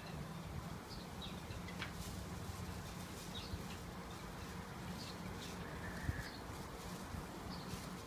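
Small birds giving short, high chirps about once a second, over a steady low hum, with a single thump about six seconds in.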